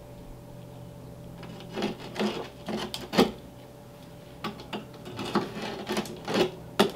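Utility knife blade scoring and scraping along a cut line in cement backer board (USG Durock) in short strokes. A few strokes come about two seconds in, then a quicker run of them from about four and a half seconds on.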